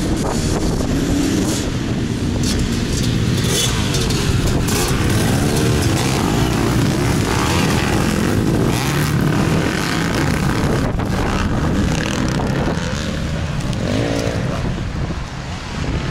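A pack of off-road dirt bikes accelerating hard past together off the start, many engines revving at once; the sound eases near the end as they pull away.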